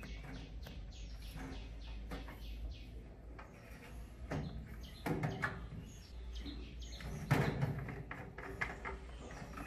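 Hard plastic clicking, creaking and knocking as the white RO membrane housing of a water purifier is unscrewed and handled by hand, with a few louder thumps about four, five and seven and a half seconds in.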